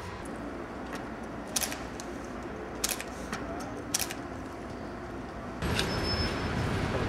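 Construction-site and street ambience: a steady background of traffic and site noise broken by three sharp knocks. About five and a half seconds in it switches abruptly to louder, fuller noise from inside the building site.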